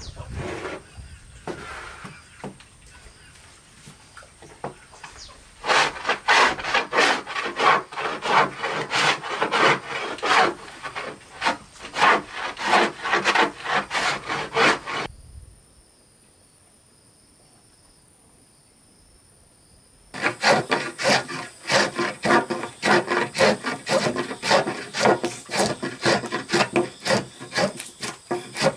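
Wooden hand plane shaving along a wooden board, one rasping stroke after another about twice a second. There are two runs of strokes with a short pause between them.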